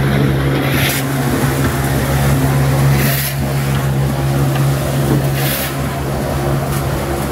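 A machine running steadily with a low, even hum, and a brief rush of hiss about every two to three seconds.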